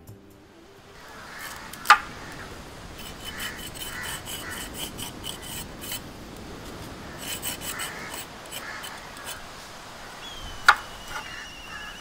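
Knife blade scraping the skin off a bottle gourd in short repeated strokes, with two sharp knocks, one about two seconds in and the loudest near the end.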